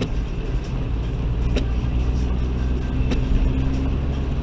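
Cabin noise of a Toyota Aygo driving on a wet road: a steady engine and tyre rumble, with a short knock from the windscreen wiper about every one and a half seconds.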